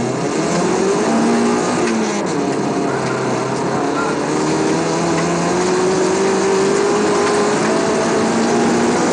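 Rally car engine accelerating hard off a stage start on snow, heard from inside the cabin. The engine note climbs and drops back at a couple of gear changes, over steady road noise.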